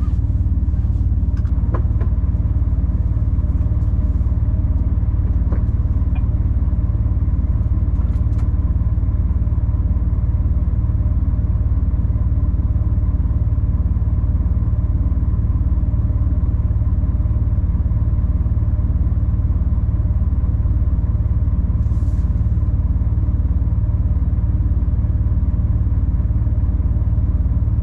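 Steady deep drone of a 26-tonne rigid lorry's diesel engine and road rumble heard from inside the cab while driving. A short hiss about two-thirds of the way through.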